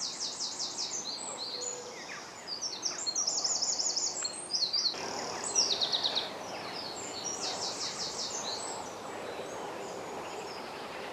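Several songbirds singing at once, fast repeated trills and chirps overlapping one another, over a steady faint hiss of open-air background noise.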